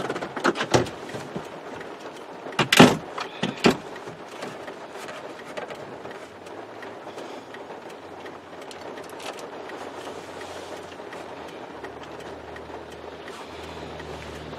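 A few sharp clicks and knocks inside a 2002 Chevrolet Tahoe's cab, loudest about three seconds in, then a steady rushing noise, with a low hum joining near the end.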